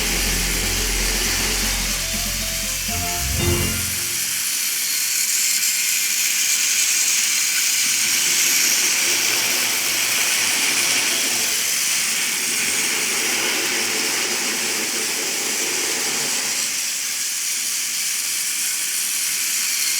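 Background music for the first four seconds, then the steady whirring hiss of battery-powered toy train engines, including a TrackMaster Douglas, running around plastic track.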